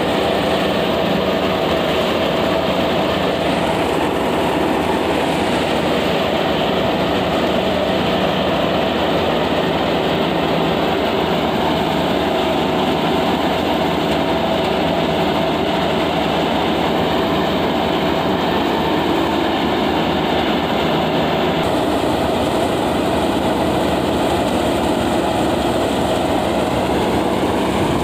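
Tractor-driven paddy thresher running steadily under load: a Mahindra tractor engine turning the threshing drum through its PTO shaft while paddy is fed in, a continuous machine drone with the sounds of the drum and the threshing mixed in.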